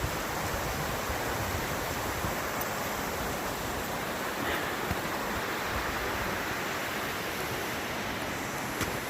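Steady rushing water, an even hiss without breaks.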